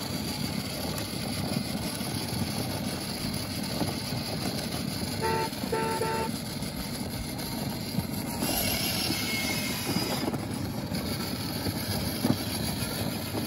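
Electric ride-on toy Jeep driving over asphalt: steady noise of its plastic wheels and motor rolling along, with two short horn beeps about five seconds in.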